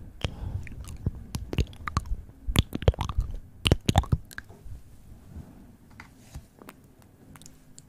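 Wet mouth sounds close to a microphone: lip smacks and tongue clicks in quick, irregular succession, thickest in the middle and thinning out after about five seconds.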